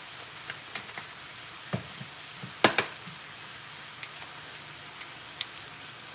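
Ground-beef patties frying in oil in a pan: a steady sizzling hiss with scattered small crackles, and two sharp, louder pops about two and a half seconds in.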